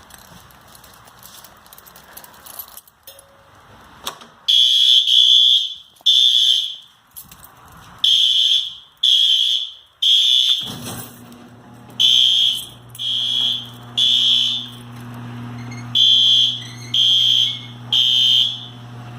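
Fire alarm sounding on test: a loud, high-pitched electronic beep repeating roughly once a second, starting about four seconds in. A low steady hum comes in about halfway through and runs beneath the beeps.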